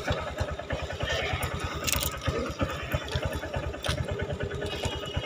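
Motorcycle engine idling, a steady low putter of rapid even pulses, with a few light clicks and rustles of handling over it.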